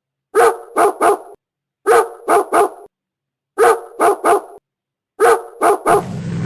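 Dog barking in four identical groups of three quick barks, about a second and a half apart: the same bark clip repeated, as in an animal sound effect.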